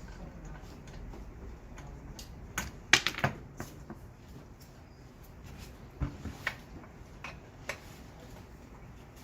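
Scattered sharp metallic clicks and knocks from a wrench and loose hardware as the end caps are taken off a floor sander's drum, with the loudest cluster about three seconds in and another around six seconds.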